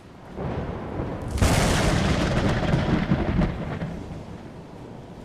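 A loud rumbling crash like thunder, with no pitch to it. It swells up, jumps louder about a second and a half in, then dies away over the last couple of seconds.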